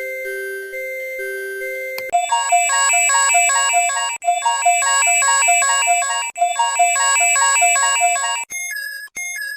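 Electronic emergency alert tones: a slow two-note alternating beep, switching about two seconds in to a fast repeating chime-like tone pattern that restarts about every two seconds, then near the end to a sparser pattern of separate beeps.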